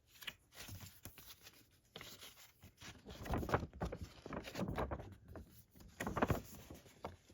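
Folded paper poster being handled and unfolded, with crackling paper rustles that come in several irregular bursts, the loudest about halfway through.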